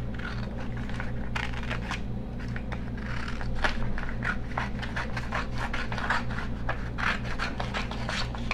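Scissors cutting through a sheet of paper pattern: a quick, irregular run of snips, with the paper rustling and scraping against the blades.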